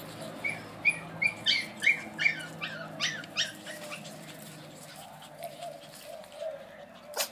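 Brussels Griffon puppies yelping during rough play: a quick run of about eight short, high-pitched yelps, some falling in pitch, in the first half, then quieter.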